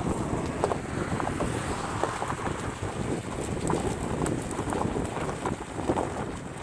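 A Cadillac's tyres rolling slowly over gravel, with an irregular crunching crackle and steady wind buffeting the microphone.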